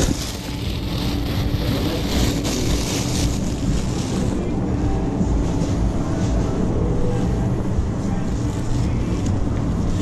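Phone microphone rubbing against clothing, rustling for the first few seconds, over a steady low hum and rumble.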